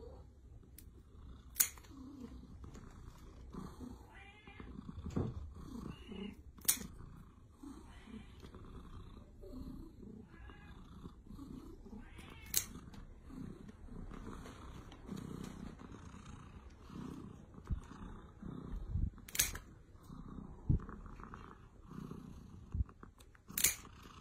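Cat purring softly while its claws are trimmed with small pet nail scissors. Several sharp snips of the blades closing on the claws, a few seconds apart.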